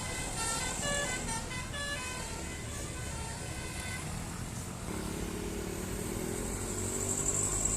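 Telolet basuri bus horn playing a quick melody of stepped notes, which stops about two and a half seconds in. A bus engine follows, its pitch rising as it speeds up.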